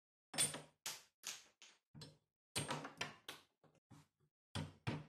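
Steel hammer knocking the wooden handle off a rusty old file's tang held in a vise: about a dozen sharp metal knocks in uneven bursts, a few with a brief high ring.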